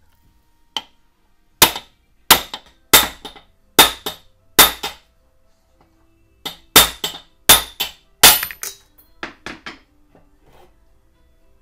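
Hammer blows striking a tool held against the original H7 bulb adapter of a BMW E46 halogen headlight, knocking the adapter out of the housing. There is a light tap, then five hard strikes less than a second apart, a short pause, another run of five, and lighter taps near the end, each followed by a brief clinking rattle.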